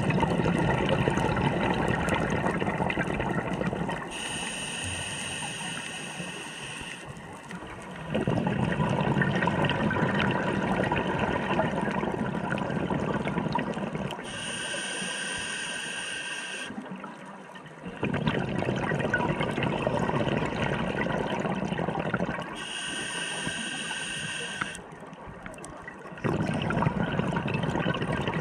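Scuba diver breathing through a regulator underwater: long, loud rushes of exhaled bubbles alternate with shorter, quieter hissing inhalations that carry a steady whistling tone, three full breaths in all.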